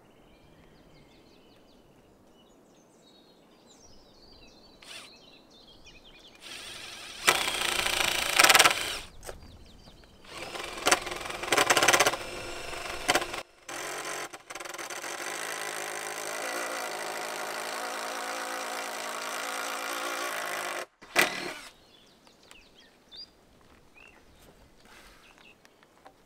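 Motorised tool running in several loud bursts, then one steady run of about six seconds that cuts off suddenly; faint bird chirps at the start and end.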